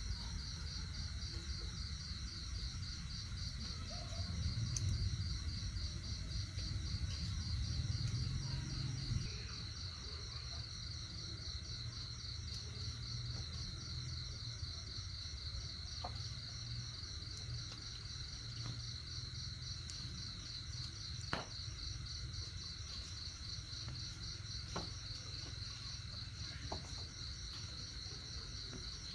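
Crickets chirping in a steady, rapid, high-pitched trill, with a low rumble over roughly the first ten seconds and a few faint clicks later on.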